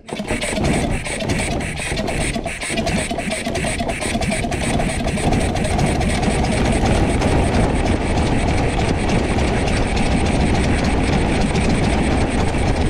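Two-cylinder Briggs and Stratton engine with a wooden propeller, hand-propped on a cold start with the throttle cracked. It catches at once and settles into a steady run, the prop turning.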